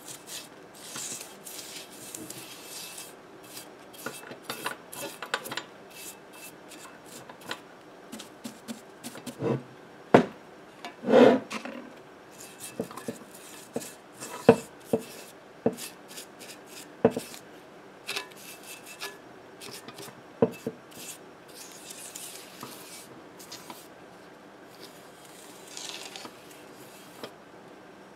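Irregular scraping and rubbing strokes as a 32 cm Audax loudspeaker's paper cone is cleaned during a foam surround replacement, with several sharp knocks and taps around the middle.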